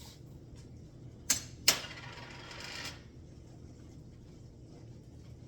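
Two sharp clicks from a spice container, then about a second of rattling as dried spice is shaken out into the pot.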